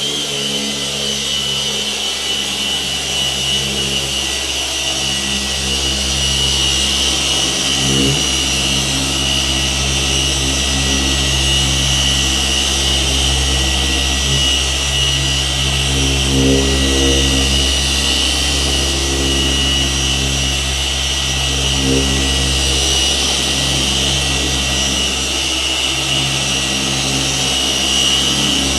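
Rupes Mark III 21 mm throw random-orbital polisher running steadily while buffing a car body panel with a pad.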